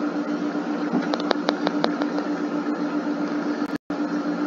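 Steady electrical hum with a low pitched tone, the background noise of the recording, with a quick run of about six light clicks between one and two seconds in. The sound cuts out for an instant near the end.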